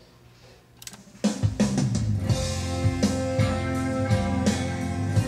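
A click, then a song with guitar and drums starts about a second in, played from a CD cart by a Denon DN-950FA CD cart player, and keeps playing steadily.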